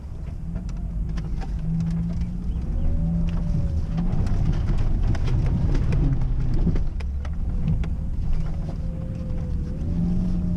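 Suzuki Grand Vitara's engine running as the car drives over a rough, muddy track, heard from inside the cabin. The engine's pitch rises and falls, and short knocks and rattles from the body and suspension come throughout.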